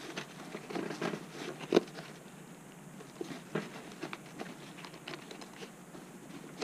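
Nylon briefcase-style plate carrier being handled as its zipper is worked: scattered fabric rustles and small clicks, with one sharper knock nearly two seconds in.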